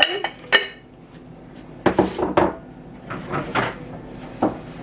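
Kitchen dishes and utensils clattering as a bowl is taken out and handled. There are several separate knocks and clinks, a few close together near the middle and one more near the end.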